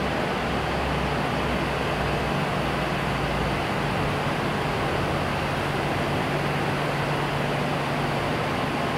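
A bank of electric fans running together: a steady rush of moving air under a low, even motor hum.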